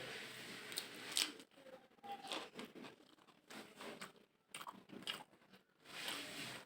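A person eating mutton biryani close to the microphone: irregular chewing and mouth clicks, with a sharp click a little over a second in.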